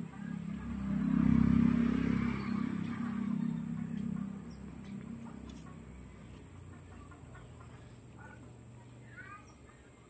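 A low, steady rumble swells and fades over the first few seconds, then domestic chickens cluck a few times near the end.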